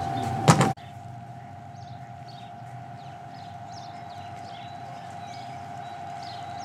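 Steady whine of a small hydroelectric station's turbine and generator, one unchanging tone. A sharp knock sounds about half a second in, and faint bird chirps come through behind the whine.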